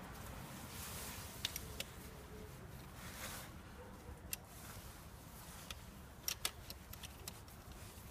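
A few sharp, irregular metallic clicks from a ratchet wrench and extension being fitted to and turned on the automatic gearbox's fill plug as it is screwed back in by hand. The clicks are faint.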